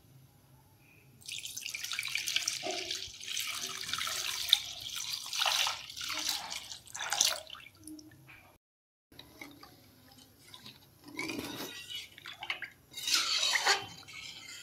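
Milk being poured into a metal kadai, a splashing pour that starts about a second in and runs for several seconds. After a short break, the milk sloshes as a metal spatula stirs it.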